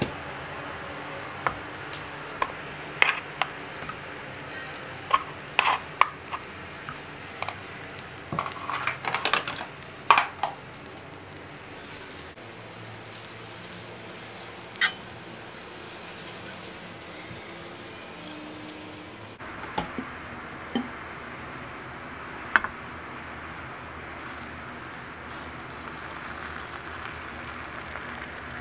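Cooking in a nonstick frying pan: light taps and clicks of a pastry brush and utensils against the pan as it is greased, over a soft sizzle. After a cut, a few more taps, then a steady quiet sizzle as the whipped-egg cloud omelette cooks.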